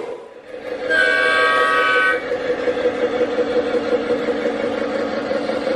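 Proto-Sound 2.0 sound system of an MTH RailKing Galloping Goose O-gauge model train sounding a horn chord for about a second, starting about a second in, then a steady engine hum as the model runs.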